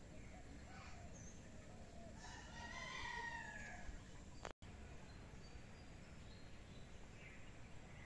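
A rooster crowing once, faintly, starting about two seconds in and tailing off downward, over a low steady background hum. A sharp click with a momentary cutout follows a little after.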